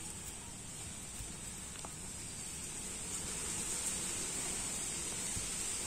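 Quiet steady outdoor background hiss with a thin high-pitched drone, broken by a few faint soft thuds of bare feet stepping on a brick path.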